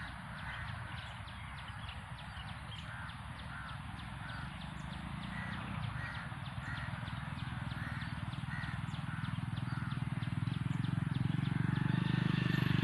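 A bird calling over and over in short repeated calls, about one or two a second, while a low rumble grows louder toward the end.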